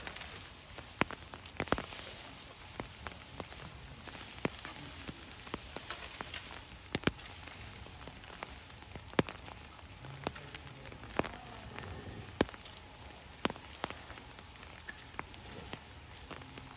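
Steady rain, with frequent irregular sharp taps of drops landing close by.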